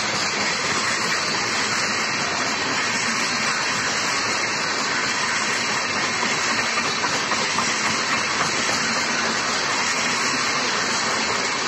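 Steady rushing noise of a passenger train's coaches passing at speed, wheels running on the rails.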